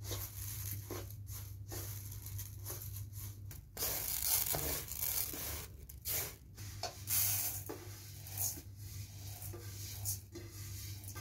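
Dry uncooked rice grains swept and spread by hand across an aluminium tray, a hissing rustle in repeated strokes, loudest about four seconds in. Near the end the rice is poured from the tray into a metal bowl.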